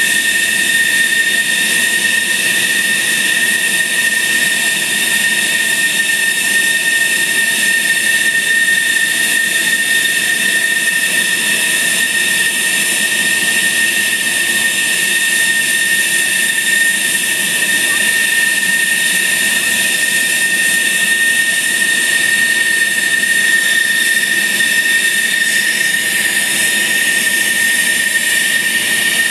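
F-16 fighter jet's engine idling: a steady, loud jet whine with a high-pitched tone over a constant roar.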